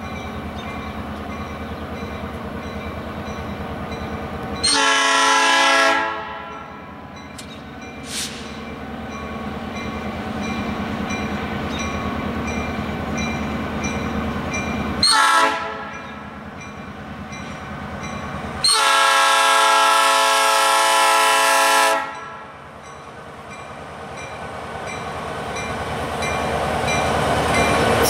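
EMD GP38-2 diesel locomotive sounding its multi-note horn: a long blast about five seconds in, a short one near fifteen seconds, and a long three-second blast near nineteen seconds. Between the blasts its engine rumbles steadily, growing louder near the end as it approaches.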